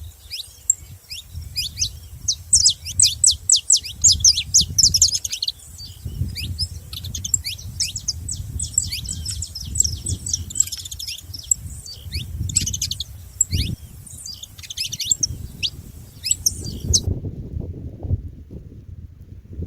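Saffron finches chirping and singing: a busy run of short, rapid, falling high notes, densest a few seconds in, that stops abruptly near the end. A low rumbling noise runs underneath.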